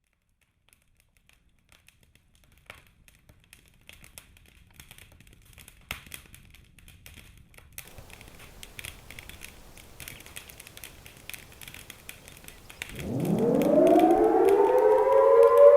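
Crackling static with scattered clicks. About thirteen seconds in, a civil defense siren winds up, its pitch sliding up quickly and levelling off into a loud, steady wail.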